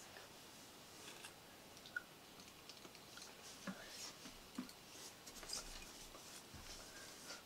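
Near silence: room tone with faint, scattered small clicks and soft rustles.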